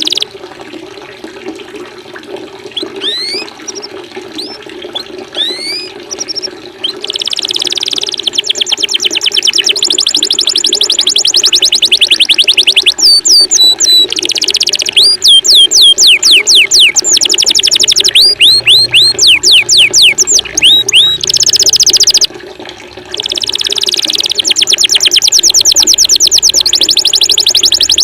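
Recorded small-songbird song used as a training track for white-rumped shamas. A few scattered rising whistles give way to long, very fast, loud trills of high chirps and sweeping downward whistles, broken once about 22 seconds in. A steady sound of running water lies under it.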